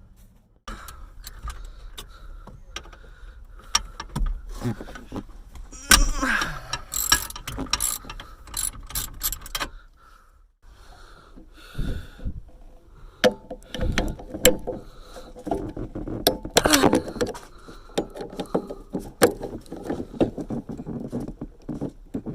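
Hand tools working the bolts of a car seat's rails: bursts of rapid metal clicks with scattered knocks, and a short pause about ten seconds in.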